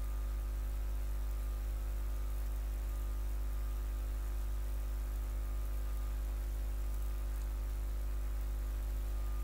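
Steady low electrical hum with a faint even hiss, unchanging throughout.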